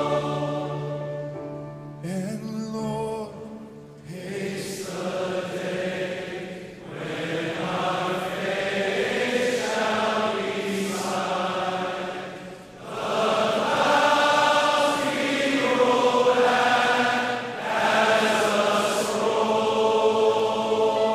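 Slow choral music: voices singing in harmony, holding long chords that change every second or two.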